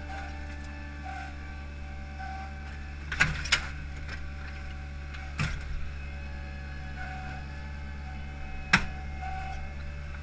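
Hydromak paving machine running steadily, with sharp knocks from the paver clamp and concrete pavers as a layer of H-profile stones is gripped and lifted: two close together about three seconds in, another past five seconds, and the loudest near the end.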